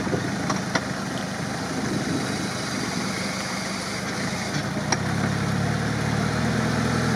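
Engine of a UAZ off-roader on BTR armoured-carrier tyres running under load as the truck churns through deep swamp mud, bellied out and dragging on its axles. The engine note steadies and grows a little louder about five seconds in, with a few short clicks along the way.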